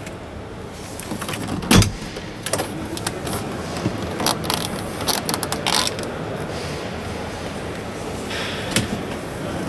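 Handling knocks and clicks on the plastic door trim of a truck cab: one loud thump a couple of seconds in, a run of small clicks in the middle, and another knock near the end, over steady background noise.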